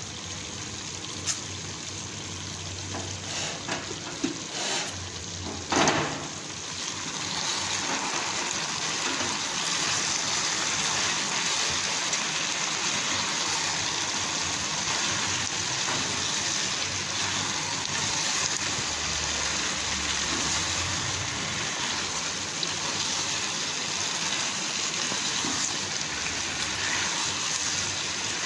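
Chicken pieces and sliced onions sizzling as they fry in an open pot, stirred with a silicone spatula while the onions soften. A few knocks in the first six seconds, then the sizzle grows louder about seven seconds in and holds steady.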